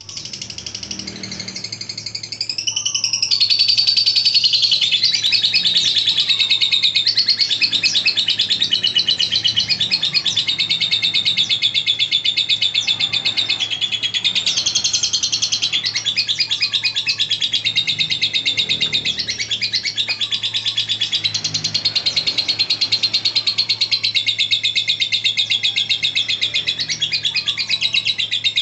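Lovebird giving its long, unbroken 'ngekek' song: a continuous, rapid, high-pitched chattering trill that grows louder about three seconds in and runs on without pause. A faint steady low hum sits beneath it.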